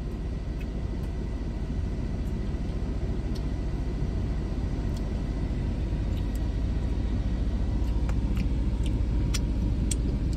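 Steady low rumble of a car heard from inside the cabin, with a few faint light clicks in the second half.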